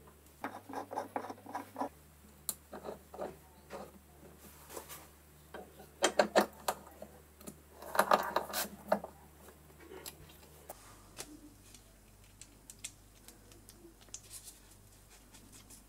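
Small knurled brass wheel clicking and scraping against steel vice jaws as it is pressed and turned by hand to pinch off the burr left by parting. A scattered series of small clicks and scrapes, loudest about six and eight seconds in.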